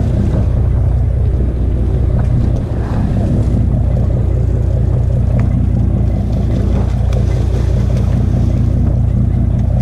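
Fishing boat's engine running with a steady, low drone.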